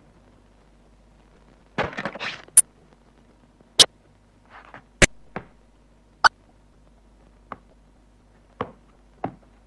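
Cartoon sound effects: single sharp clicks about a second apart, coming faster near the end, after a short scratchy rustle about two seconds in.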